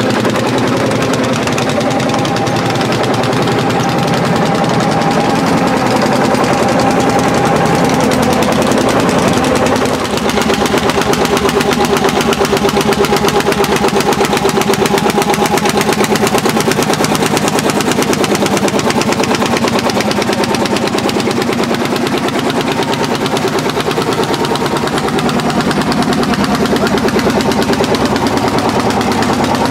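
Landini L55 hot-bulb single-cylinder two-stroke engine running hard under plough load, giving a rapid, even train of loud exhaust beats.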